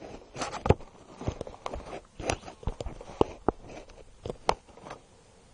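Handling noise of a phone being set up to film: irregular knocks, taps and rubbing close to its microphone, dying away near the end.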